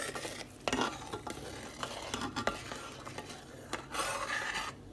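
A utensil stirring gravy in a hot skillet, with irregular clicks and scrapes against the pan over a low sizzle.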